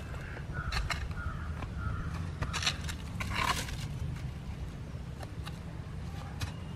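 Mamoty (digging hoe) blade chopping and scraping into loose soil, a few irregular strokes, the longest scrape about three and a half seconds in, over a steady low rumble.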